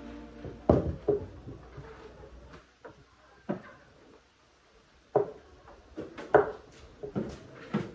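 Irregular wooden knocks and clunks, a dozen or so scattered hits of varying loudness with a short lull in the middle, like boards or a wooden stand being handled and set down.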